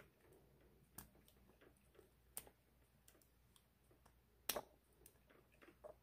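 A few faint, scattered metallic ticks and clicks of a lock pick working the pins of a cross-key padlock under heavy tension, the loudest about four and a half seconds in.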